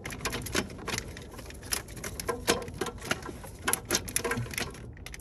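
Irregular clicks, taps and light rattles of hands working plastic coolant-hose fittings and their clips in an engine bay.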